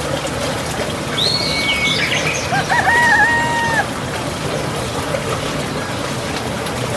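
Rooster crowing once, a wavering call that then holds steady, starting about two and a half seconds in and lasting just over a second. A short high chirp comes just before it, over a steady background hiss.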